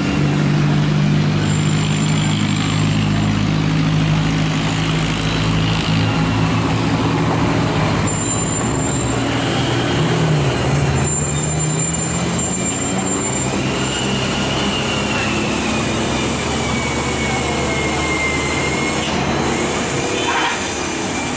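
Heavy diesel truck engine running steadily close by. From just past the middle, a long high squeal slowly falls in pitch and then holds.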